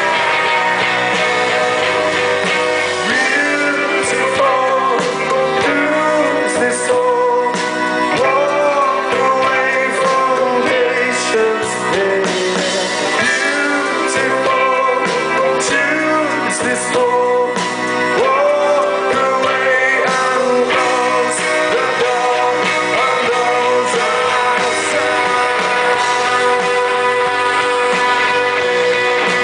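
Rock band playing live: guitars, bass and drums with singing over them.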